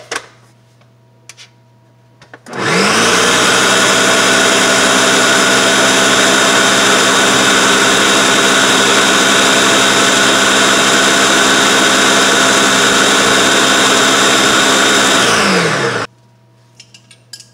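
Countertop food processor puréeing black beans with coconut oil: the motor spins up about two and a half seconds in, runs loud and steady for about thirteen seconds, then winds down and stops.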